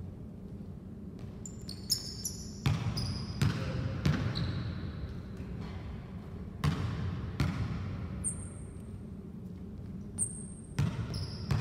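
A basketball bouncing on a hardwood gym floor in uneven dribbles, about ten knocks starting two seconds in, with short high sneaker squeaks between them over a steady low hum.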